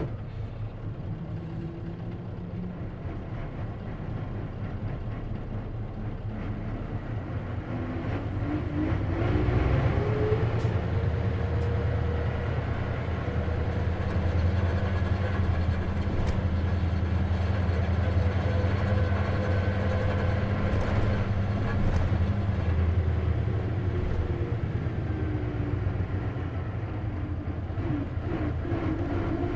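Onboard sound of an Isuzu KC-LV380N manual-transmission city bus under way: the engine's low drone grows louder about nine seconds in, with a whine rising in pitch, holds steady for a long stretch, then the whine falls away again near the end as the bus eases off.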